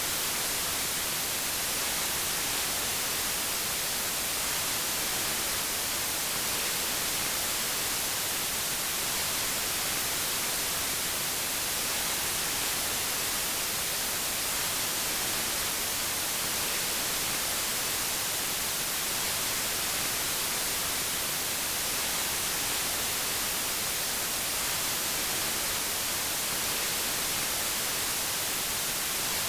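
Steady white noise: an even, unbroken hiss across the whole range, brightest in the highs.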